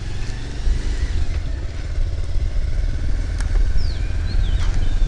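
A motorcycle's engine runs steadily under way as it rides along, with a continuous low rumble.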